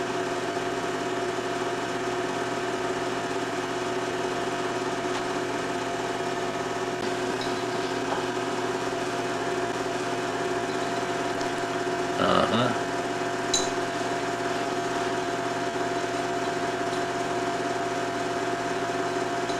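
Steady whirring hum of an 8mm home-movie projector running, with a constant pitch. A short louder sound breaks in about twelve seconds in.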